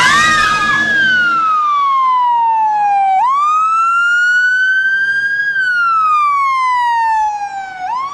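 A sudden loud scream at the start that merges into an ambulance siren on wail, its pitch falling slowly over a couple of seconds, jumping up and climbing again, then falling again in long sweeps.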